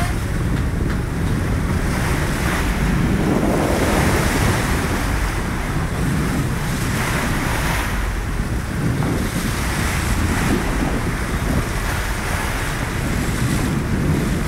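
Wind buffeting the microphone over the steady wash of open-sea waves, a fluctuating rush with no clear tones.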